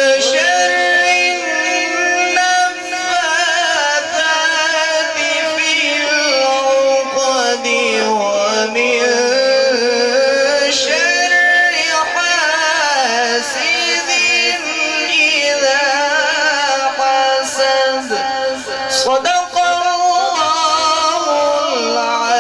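A qari reciting the Quran in the melodic tajweed style, one voice drawing out long held notes with wavering ornaments and slow rises and falls in pitch.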